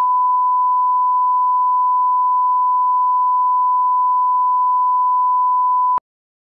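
Test tone played with colour bars: a single steady electronic pitch at constant level, cutting off suddenly about six seconds in.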